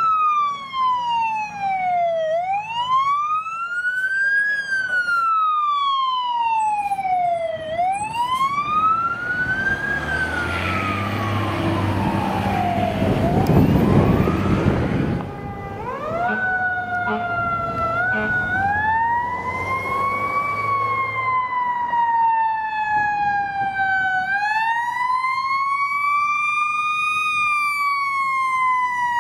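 Fire truck siren wailing, sweeping up and down about every five seconds. About halfway through, the truck's engine and tyres pass close and are loudest. A slower siren then rises and falls away.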